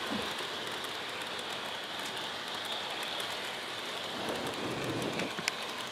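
Model Amtrak passenger train rolling past at close range on sectional track: a steady rushing with many small clicks, and one sharper click about five and a half seconds in.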